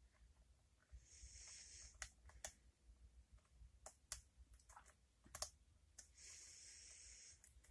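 Faint, irregular clicks of a lock pick and tension wrench working the pins inside an Abus padlock, eight or so over the stretch. Two soft hissing stretches of about a second come between them.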